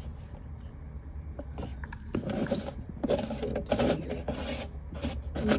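Dry dirt being dug and scraped through while searching for black soldier fly prepupae: a run of gritty scratching strokes that starts about two seconds in and turns to shorter, quicker scrapes near the end.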